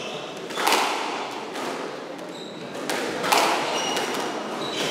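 Squash ball being struck by rackets and slamming off the court walls during a doubles rally, a few sharp hits ringing in the hall, the loudest a little over three seconds in. Short high squeaks of court shoes on the wooden floor between the hits.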